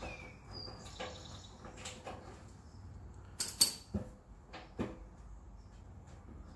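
Metal hand tools clinking and knocking against car-bumper fasteners, with one loud, sharp clank about three and a half seconds in, as a wrench is set down on the concrete floor, and a couple of duller knocks just after.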